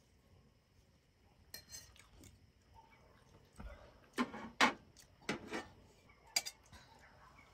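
Stainless steel bowls and eating utensils clinking against each other and a grill pan in several short clatters, the loudest about four to five seconds in.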